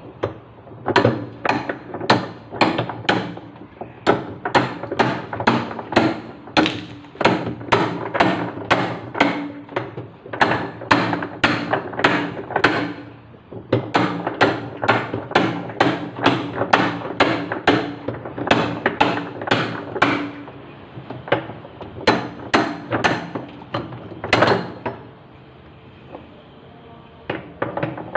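Hammer blows struck in a steady run, about two a second, with a brief pause partway through, then a few scattered hits before they stop.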